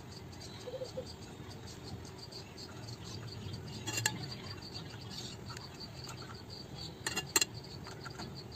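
A metal spoon clinks against a steel pan once about four seconds in and twice near the end, while petroleum jelly melts in it. Underneath runs a faint, evenly repeating high-pitched chirping.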